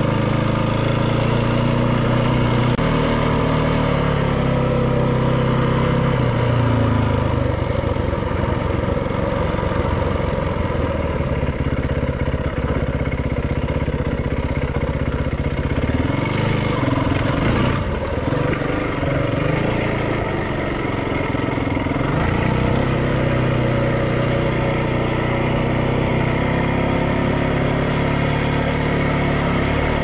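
Dirt bike engine running while being ridden, its pitch rising and falling with throttle and gear changes. The revs drop and change around the middle, then settle back to a steady run.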